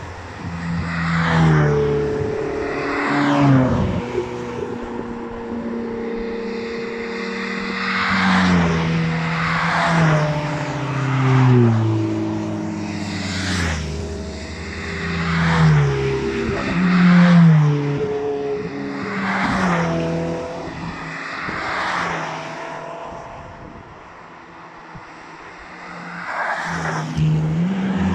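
A convoy of Ferrari sports cars driving past one after another, each engine's pitch dropping as the car goes by, with tyre and wind noise swelling at every pass. A lull comes about three-quarters of the way through before another car approaches near the end.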